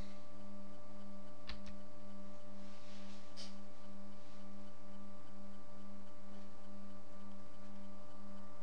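Steady electrical hum with a faint higher whine, its low tone pulsing evenly: mains hum picked up by the recording. There is a single soft click about one and a half seconds in.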